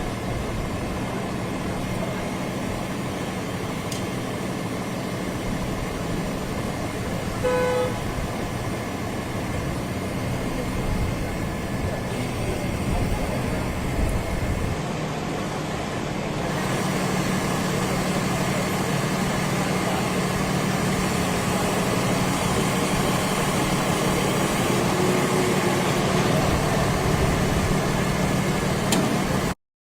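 City street traffic noise, steady throughout, with a car horn sounding briefly about eight seconds in. The noise grows louder a little past halfway and cuts off abruptly just before the end.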